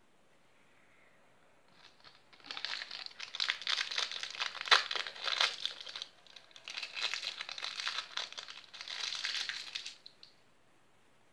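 Crinkly plastic being handled close to the microphone, crackling in two long stretches, the first starting about two seconds in.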